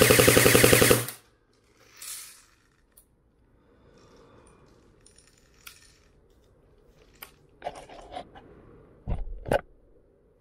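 G&G ARP 9 airsoft gun, with a Perun ETU++ mosfet and a 9.6 V NiMH battery, firing a rapid full-auto burst that stops about a second in. A few light clicks and clinks follow near the end.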